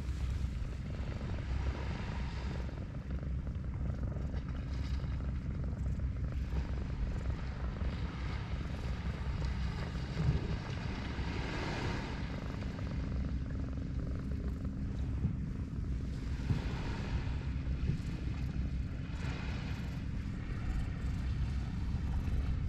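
Wind buffeting the camera microphone: a steady low rumble with soft swells of hiss coming and going.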